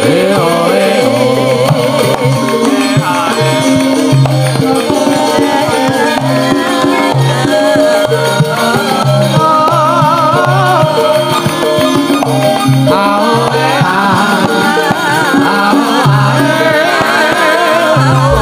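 A female Javanese sinden singing a wavering, ornamented melody into a microphone, over gamelan playing steady, repeating low notes.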